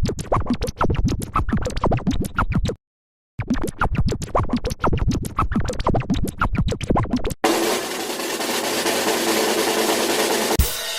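Electronic sound-effect music: a fast, rhythmic passage in two stretches with a short break between them, then a rising noise swell that ends in a sharp hit near the end.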